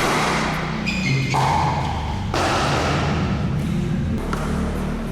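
Pickleball paddles striking the plastic ball in a rally: four sharp pops over about five seconds, each trailing off. A short high squeak comes about a second in.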